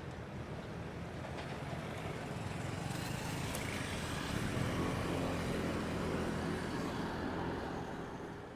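Rush-hour city road traffic passing a roadside: a steady wash of engines and tyres, with a vehicle's low engine rumble growing louder to a peak around the middle, then fading out at the end.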